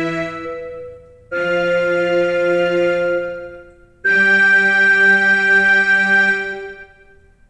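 Yamaha PSR-E263 portable keyboard playing three long held chords in a row, each fading before the next; the last dies away about seven seconds in, ending the song.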